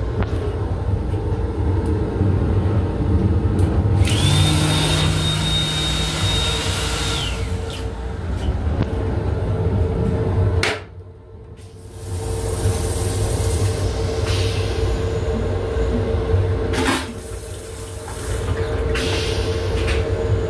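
Metro-North M7 railcar toilet flushing: a rush of water with a high steady whine, lasting about three and a half seconds. It sits over the steady rumble and hum of the moving railcar. A short knock comes later.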